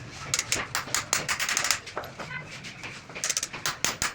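Quick runs of sharp taps or clicks, one burst in the first couple of seconds and another near the end, over a faint low hum.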